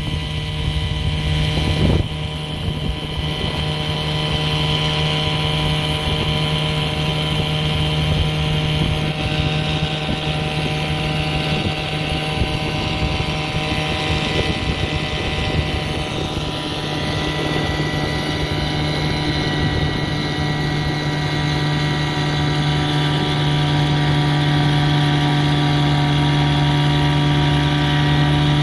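Veterok-8 two-stroke outboard motor, fitted with a Stihl MS 660 chainsaw carburettor, running at full throttle with a steady, even drone that grows slightly louder near the end.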